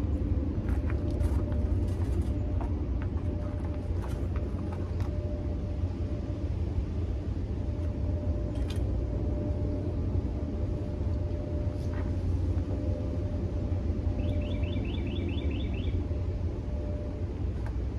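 Steady low rumble of outdoor background noise with a faint steady hum, scattered light ticks, and a quick run of about eight high chirps near the end.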